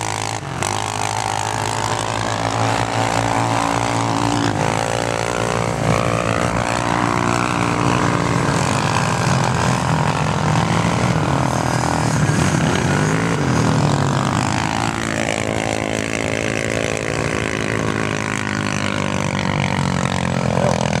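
Several sport quad (ATV) engines running under load on a dune climb, their pitch rising and falling as the riders work the throttle.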